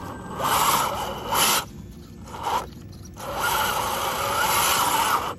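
RC off-road crawler truck grinding up a muddy rock step: a scraping, whirring rush from its drivetrain and tyres working against mud and rock. It comes in short bursts, then a longer steady push from about three seconds in.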